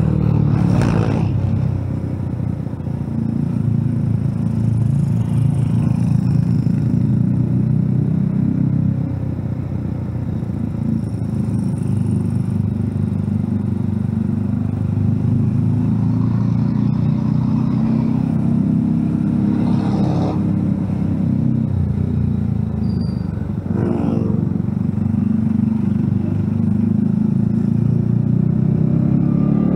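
Motorcycle engine running steadily at low road speed, heard from the rider's seat with wind and road noise; its note shifts slightly a couple of times with the throttle, and a few brief sharper noises cut in.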